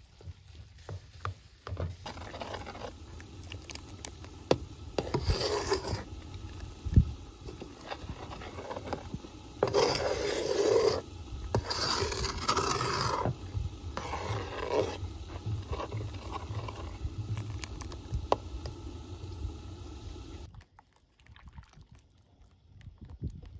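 Rough scraping and rubbing in several bursts of about a second each, with scattered knocks, stopping near the end.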